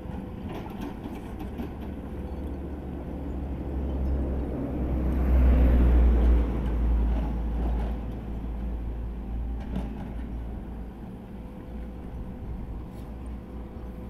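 A vehicle passing by: a low rumble that swells to a peak about halfway through and then fades away.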